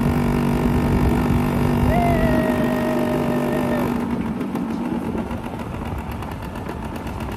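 Motorcycle engine running at road speed with wind buffeting the microphone, easing and quieter after about four seconds.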